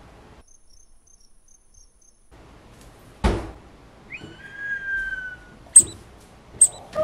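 Faint cricket chirps over near silence, then a single thump a little past three seconds in, a held whistle-like tone that falls slightly in pitch, and two short, sharp, high clicks near the end.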